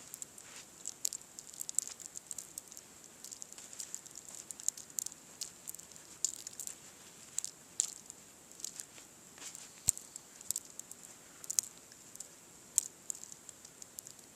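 Light, irregular pattering ticks, several a second, over a faint steady high hiss: fine, dry snow falling in the storm and striking close by.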